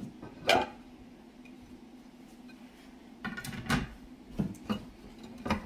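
Dishes being handled and set down on the table: a sharp knock about half a second in, then a quick run of several clinks and knocks over the last two and a half seconds.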